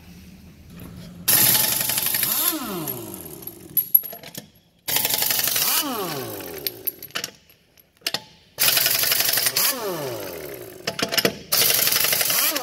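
Air-powered impact wrench run in four bursts of a few seconds each, with a high air hiss and a motor whine that drops in pitch through each burst.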